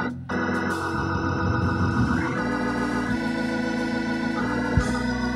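Organ holding sustained chords, moving to a new chord a few times. A single low thump sounds near the end.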